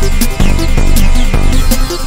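Background electronic dance music with a steady, driving beat.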